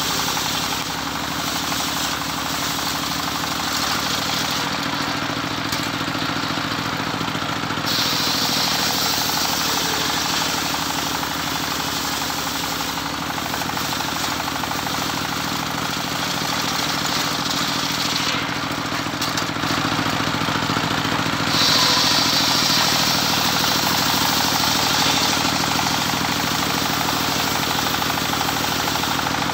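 Engine of a homemade circular-saw rig running steadily, with the spinning blade cutting through teak in two long stretches, one about a third of the way in and a louder one near the end.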